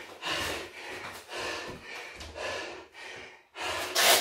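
A person breathing hard after a boxing workout round, a run of heavy, noisy breaths about every half second, with a louder noisy burst near the end.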